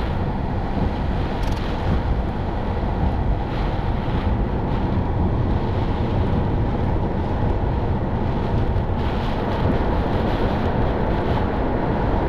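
Severe thunderstorm outflow winds blowing hard across the microphone, a loud, steady rushing rumble with gusts, a little stronger from about nine seconds in. The wind is strong enough to knock over tripods.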